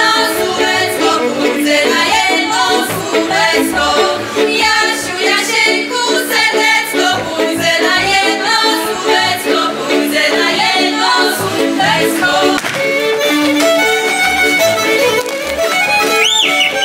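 Live folk band music, with fiddles carrying a wavering melody over a bass line; a high fiddle phrase comes in near the end.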